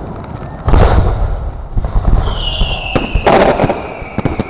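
Fireworks display: aerial shells bursting, with a loud deep bang under a second in and another a little past three seconds. A high whistle falls slowly in pitch from about two seconds in, and sharp cracks come near the end.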